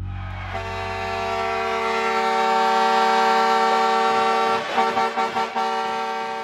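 Hockey arena goal horn sounding one long, steady blast, with a few short clicks partway through, fading out at the end.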